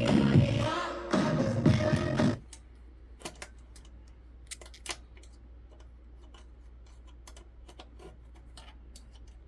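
Music through a Kenwood Basic M2A power amplifier cuts out about two seconds in, leaving a low steady hum with scattered crackles and pops: the amplifier's intermittent right-channel fault.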